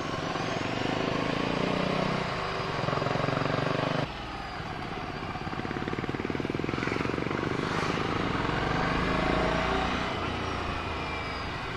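Ducati Scrambler Sixty2's 400 cc air-cooled L-twin running while riding. The engine note drops suddenly about four seconds in, climbs gradually again, and eases off near the end.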